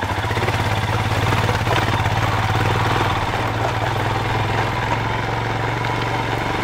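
Royal Enfield Himalayan's single-cylinder engine running at low, steady revs as the motorcycle is ridden slowly over a rocky off-road track.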